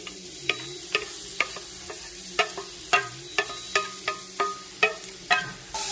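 Wooden spatula knocking and scraping against a metal bowl, about a dozen sharp taps at roughly two a second, some ringing briefly, as chopped onions and green chilies are tipped into a pan.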